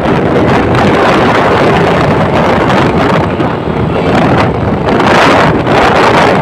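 Loud, steady wind rushing over the microphone of a moving vehicle, mixed with engine noise from the racing auto-rickshaws alongside.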